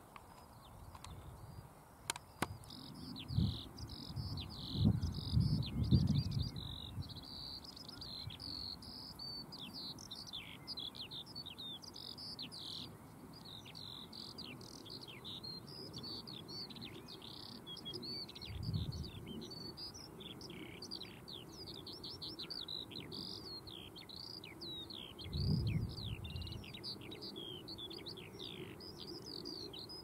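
Skylark singing: an unbroken, rapid stream of high, varied warbling chirps. A few low rumbles sound under it, the loudest a few seconds in, with a sharp click just before them.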